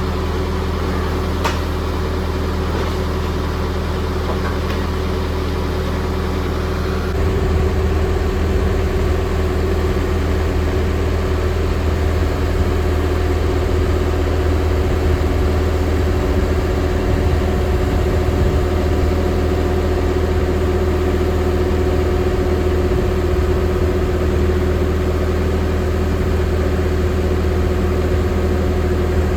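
Steady hum of running machinery: a low drone with a steady higher tone over it, and a short click about a second and a half in. It gets somewhat louder and rougher about seven seconds in.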